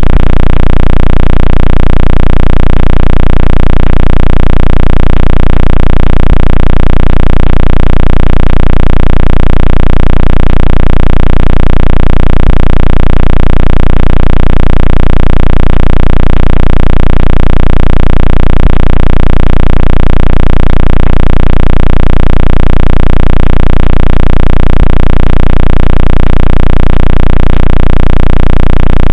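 Synthetic speaker-cleaning tone for ejecting water from a phone speaker: a very loud, steady low-pitched hum that pulses evenly, unchanging throughout.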